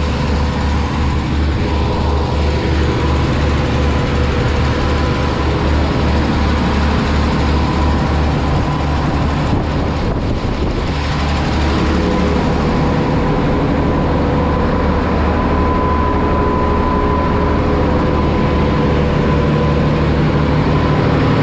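Boat engine running steadily, a loud continuous drone with a low hum and a steady whine, its pitch shifting slightly about halfway through.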